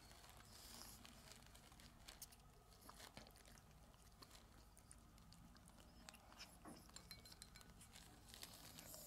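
Faint, irregular small clicks and crunches of a cat eating.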